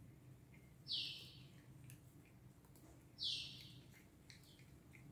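A bird giving a short, high, downslurred call twice, about two seconds apart, over a faint steady hum.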